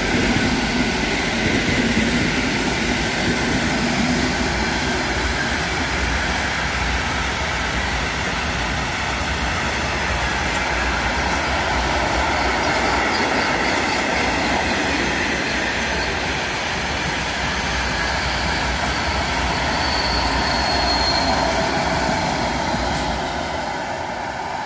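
Freight train of rail tank wagons rolling past at speed: a steady rumble and rattle of wheels on rail, with a brief high wheel squeal about twenty seconds in. The sound eases a little near the end as the train draws away.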